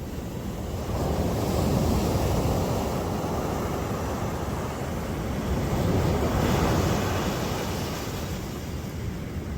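Sea waves breaking on the shore, the wash swelling twice as waves come in, with wind buffeting the microphone.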